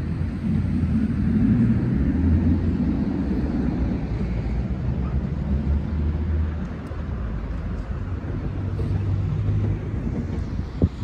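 Road traffic on a multi-lane city street: cars and buses driving past in a steady low rumble that swells over the first few seconds. A single sharp click near the end.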